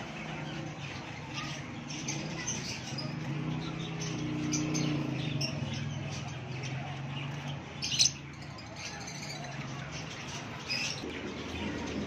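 Lovebirds chirping and squawking in short, scattered high calls, with one louder call about eight seconds in, over a low steady hum.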